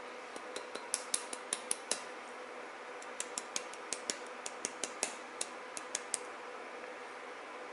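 Two runs of quick, irregular light clicks and clacks, the first about two seconds long and the second about three, over a faint steady hum.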